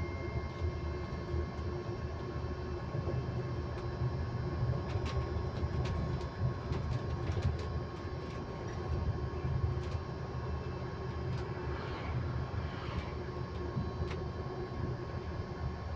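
Ride inside an electric bus: a steady whining tone holds one constant pitch over the low rumble of the road, with scattered light rattles and clicks.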